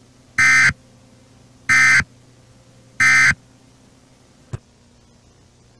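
Emergency Alert System end-of-message data tones: three short identical digital bursts about a second apart. A single click follows near the end.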